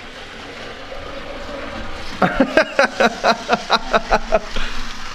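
A young child laughing: a quick run of about a dozen short "ha"s, starting about two seconds in and lasting about two seconds.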